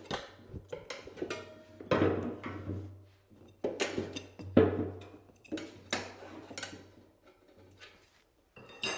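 Hand tools and wheel parts clacking and knocking against each other during a dirt bike tire change: a string of sharp, ringing knocks about a second apart, over a low steady hum.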